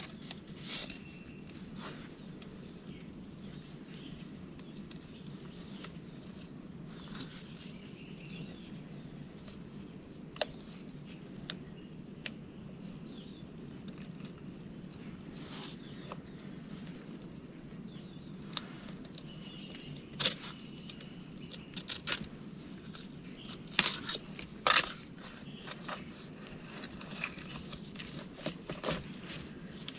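A hand digging and groping in a muddy crab hole among mangrove roots to reach a mud crab: scattered scrapes, crackles and knocks, more frequent and louder in the second half. A steady high insect drone runs underneath.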